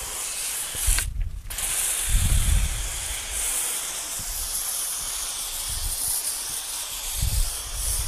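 A high-pressure washer's foam lance spraying shampoo foam, a steady hiss that cuts out briefly about a second in and then resumes. A few short low rumbles sound over it.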